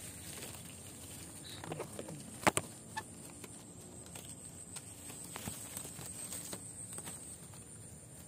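Scattered light clicks and taps, with one sharper knock about two and a half seconds in, over a faint steady high-pitched whine.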